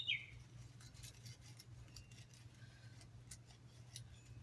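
Quiet room with faint, scattered light ticks and clicks over a low steady hum; a bird chirps briefly at the very start.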